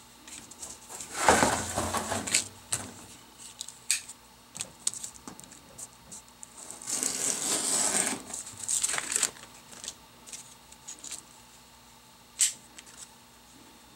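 Fine emery cloth being torn into strips: two rasping tears about a second long, several seconds apart, with light metallic clinks of a screwdriver on a steel bench between them.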